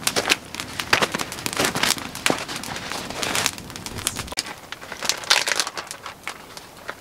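Wood campfire crackling, with sharp irregular pops and snaps.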